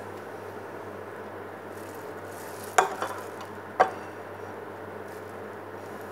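Cake-donut batter sizzling steadily in the hot wells of an electric mini donut maker, with two sharp clinks of the metal ladle about a second apart near the middle.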